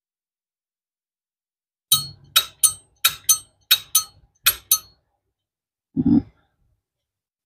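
1977 Zippo lighter's hinged lid flicked open and snapped shut repeatedly, about nine sharp metallic clicks in quick pairs, each with a brief ring. A single duller knock follows near the end.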